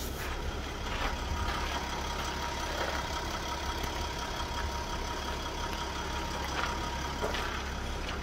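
A steady low vehicle rumble, with a faint steady whine that comes in about a second in and stops about seven seconds in.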